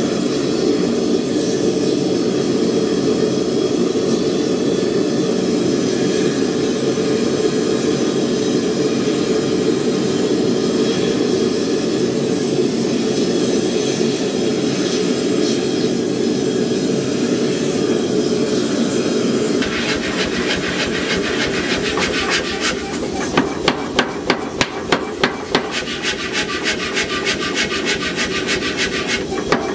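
A steady rushing noise for about the first twenty seconds. Then a power hammer strikes the glowing steel blade in rapid, evenly spaced blows, about three a second, with short pauses between runs.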